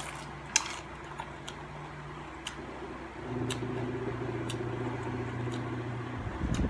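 A steady low mechanical hum that drops in pitch and grows louder about three seconds in, with faint scattered small clicks over it.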